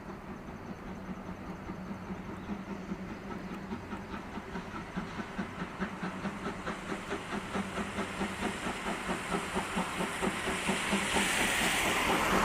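Steam locomotive C11 325 approaching and working, its exhaust chuffing in a steady rhythm that grows louder, with steam hissing building near the end.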